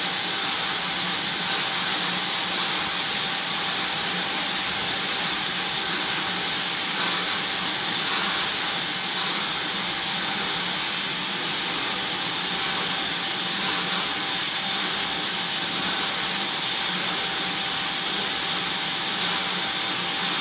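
Silk reeling machines running: a steady whirring hiss with a faint constant hum underneath.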